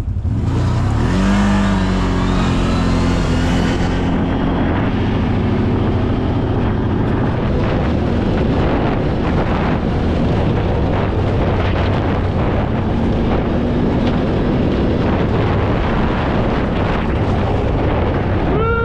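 CFMoto 1000's engine pulling hard as the machine is driven fast over a rough trail, its pitch rising about a second in and then holding high. A constant rattle and knocking from the rough ground runs underneath.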